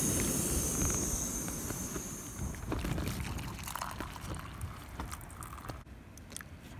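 A gas canister camping stove burning with a steady hiss, which stops about two and a half seconds in. Then water is poured from a collapsible kettle into a plastic mug, with a few light clicks and knocks.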